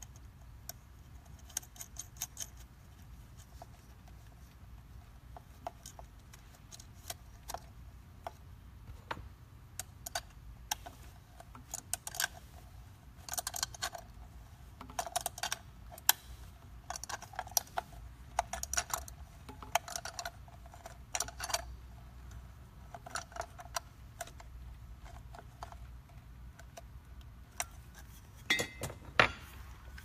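Small metal parts, a nut and hand tools clicking and clinking irregularly against the metal handle of a B2 edger floor sander as its switch is fastened and the handle reassembled, with a burst of louder clatter near the end. A low steady hum runs underneath.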